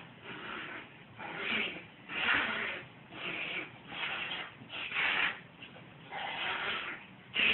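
American Eskimo dog wriggling on its back on carpet, its fur scuffing against the pile in a series of rubbing swishes about once a second.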